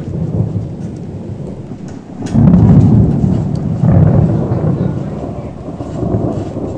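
Thunder from a thunderstorm with heavy lightning: a low, steady rumble jumps suddenly louder about two seconds in, swells again about four seconds in, then slowly fades.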